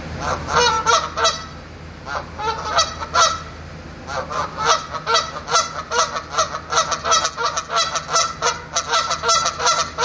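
Canada geese honking: a run of short, repeated honks, a brief lull about two seconds in, then honking almost without a break at two or three honks a second.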